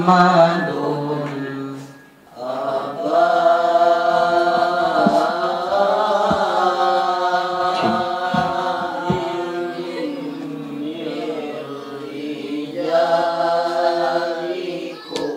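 A man chanting Quranic recitation into a microphone, with long drawn-out melodic notes. There is a short break about two seconds in and another near the end.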